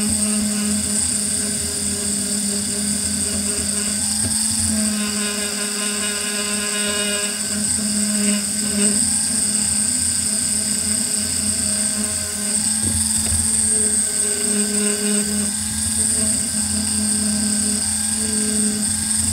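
Handheld polisher with a foam pad running steadily while buffing a steel sword blade: a constant motor whine over a low hum.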